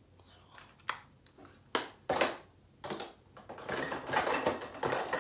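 Plastic makeup compacts and products clicking and clattering against each other while someone rummages through them. A few separate sharp clicks come first, then busier clattering and rustling for the last few seconds.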